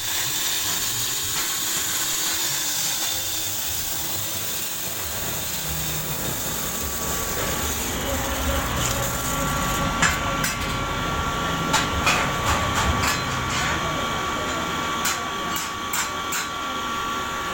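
FFC 15 corn-flour mill, driven by a 1/4 hp electric motor, running with a steady mechanical noise. About ten seconds in a steady whine joins it, and a scatter of sharp knocks and clicks follows.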